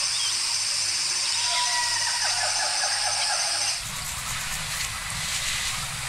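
Outdoor ambience with a loud, steady, high-pitched buzz. About four seconds in it cuts abruptly to a quieter ambience with a low rumble.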